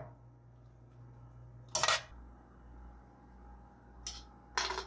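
Three short clinks and clatters of cookware, one about two seconds in and two close together near the end, as a ceramic baking dish and a skillet are handled.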